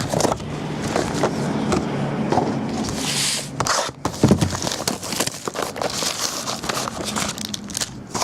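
Rustling and crinkling of trading-card packaging and cards being handled, with irregular clicks and a sharp burst of crinkling about three seconds in.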